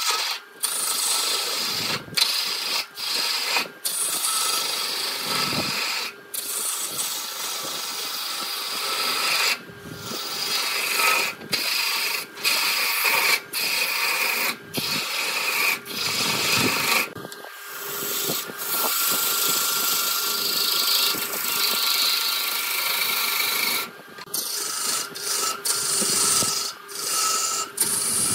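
Turning tool cutting into wood spinning on a lathe: a steady scraping hiss broken by frequent short gaps.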